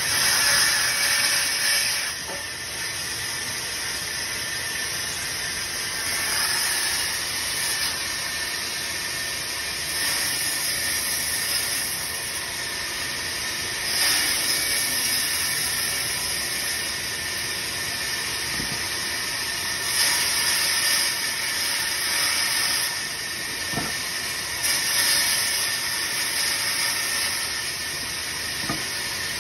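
Vertical band saw running and cutting through a wooden block for a cricket bat: a steady hissing whine that swells for a second or two at a time, several times over.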